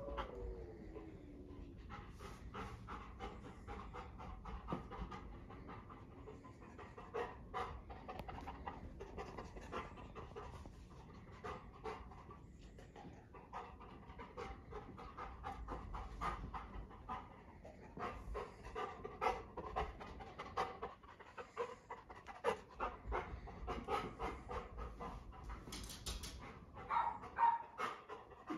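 Golden retriever panting steadily and rhythmically as it moves about the room searching.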